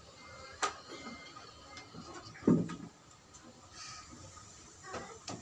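Faint scraping and a few sharp clicks of a metal cuticle pusher working thick dry skin off the edge of a big toenail, with one short, louder low sound about halfway through.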